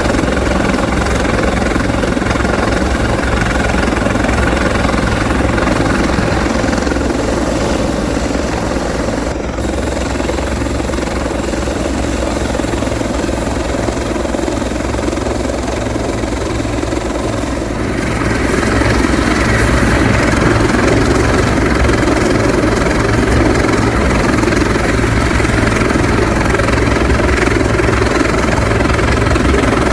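Bell 412EP helicopter running, its twin turbines and rotor making a steady, loud drone. About eighteen seconds in the sound grows louder and brighter.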